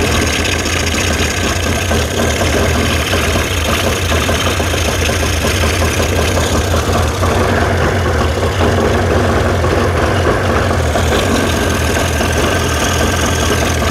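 Evinrude 40 hp outboard motor running steadily on flushing muffs while fogging oil is sprayed into its carburetor intakes, the stage of winterizing where the oil begins to slow and choke the engine.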